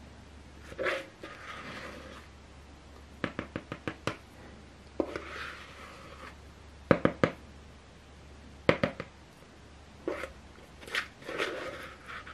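Thick sponge-cake batter being scraped out of a plastic mixing bowl: several short scraping strokes broken up by quick runs of sharp taps and clicks against the bowl.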